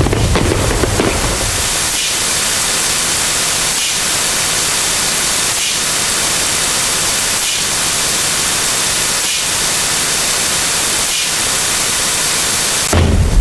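Loud, steady static-like hiss with faint regular dips about every second and a half to two seconds: a sound effect layered on itself many times until it blurs into noise.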